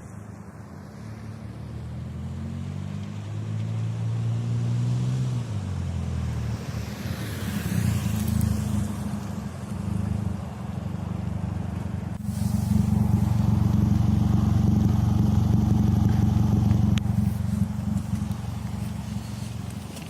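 First-generation Mazda 3's four-cylinder engine through a straight-piped exhaust with the muffler removed, driven under acceleration: the engine note climbs for about five seconds and then falls, and from about twelve seconds in it runs louder and steady.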